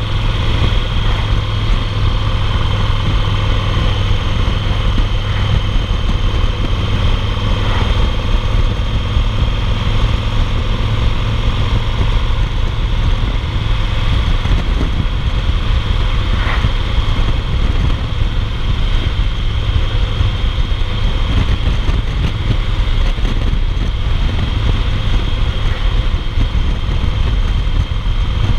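2008 Yamaha Roadliner's air-cooled V-twin running steadily at highway cruising speed, heard from the saddle with wind rushing over the microphone.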